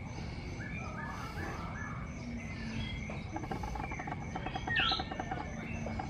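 Javan mynas calling: a few short chirps, then a louder call that falls in pitch near the end. Insects trill steadily in the background.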